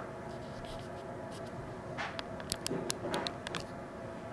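Café room tone: a steady hum with faint distant voices, and a short run of light clicks about two and a half to three and a half seconds in.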